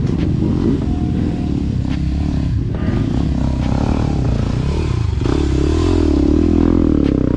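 Dirt bike engines running on a trail climb. From about five seconds in, one engine is revved up and down over and over, with some clattering and scraping alongside.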